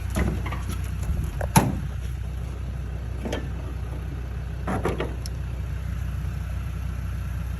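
A few sharp metallic clunks and knocks from handling the rusty car body, the loudest about a second and a half in, over a steady low hum.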